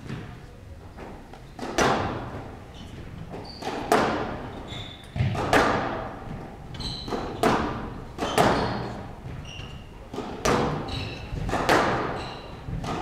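Squash rally: the rubber ball cracks off rackets and the glass and front walls about once a second, each hit ringing on in the hall. Short high squeaks of players' court shoes on the floor come between the hits.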